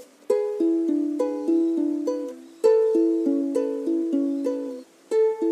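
Background music: a plucked string instrument picking a bright melody of short notes, with a brief pause near the end.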